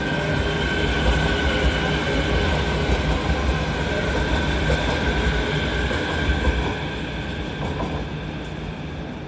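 JR Kyushu 815 series electric train pulling away past the platform: running noise and wheel rumble with a steady high whine, fading from about two-thirds of the way through as it moves off.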